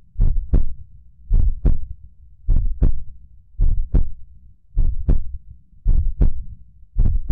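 Heart sounds derived from a high-fidelity aortic pressure recording: paired lub-dub beats at a slow, even rate of about 55 a minute, over a low steady hum. The slow rate belongs to the recovery after a Valsalva strain is released.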